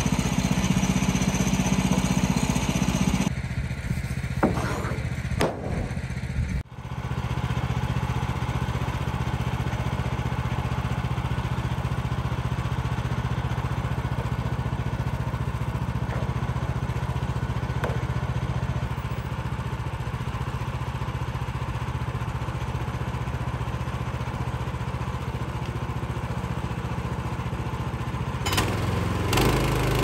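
Woodland Mills HM126 sawmill's Kohler engine running steadily, not cutting, with a few light knocks of a board being handled. The sound breaks off sharply once, about a third of the way in, then carries on the same.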